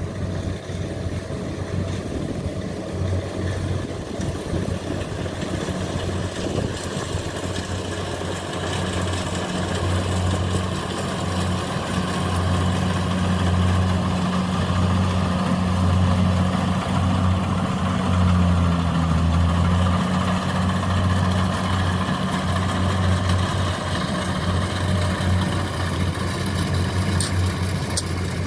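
Rice combine harvester's engine running steadily as it cuts ripe rice. The hum grows louder through the middle as the machine works closer.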